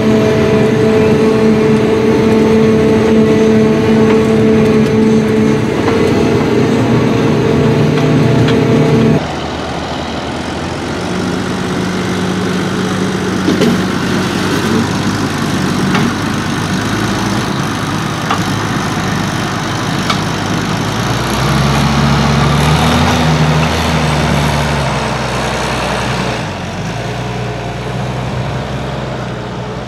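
Forage harvester engine running at steady high revs while chopped grass blows from its spout. About nine seconds in, the sound cuts to a tractor's diesel engine working on the silage heap to pack it, its pitch rising and falling.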